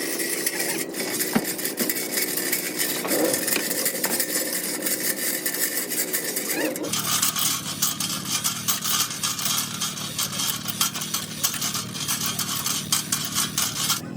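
Rapid metallic tapping and clinking from car body repair work, with a sudden change in the sound about seven seconds in.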